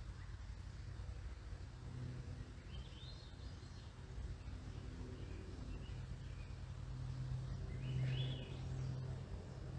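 Songbird chirps in two short bursts of rising notes, about three seconds in and again near eight seconds, with fainter calls between. Under them runs a low, steady drone.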